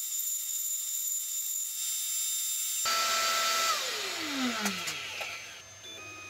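CNC router spindle running with a steady high-pitched whine while carving particle board, with the dust vacuum running. About three seconds in the sound suddenly fills out, and a whine falls steeply in pitch as the motors spin down.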